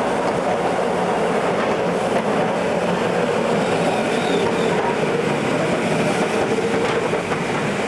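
Melbourne W class tram passing close by, its steel wheels running on the rails.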